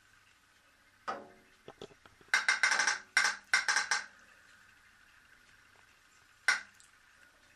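Toy pop-pop steam boat's diaphragm buzzing: a faint steady hum that breaks into loud spurts of rapid popping several times in the middle and once more near the end.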